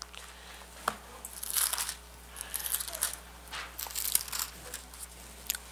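Pages of a Bible being leafed through: several separate papery rustles as the thin pages are turned, with one sharp click about a second in.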